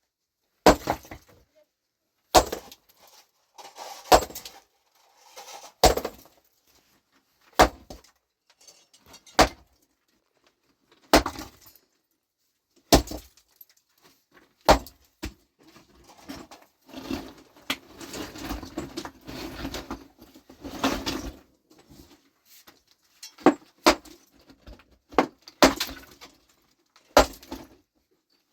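Hammer blows breaking rock, one heavy strike every second and a half to two seconds, each followed by a brief clatter of stone. Around the middle there is a longer stretch of rattling and scraping stones.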